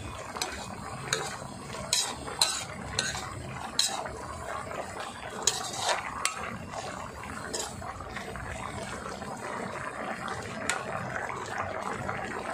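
A metal spoon stirs a thick green curry in a metal pan, clinking and scraping against the pan with many sharp clicks, which thin out after about eight seconds. Under the clicks, the coconut-milk curry bubbles steadily over high heat.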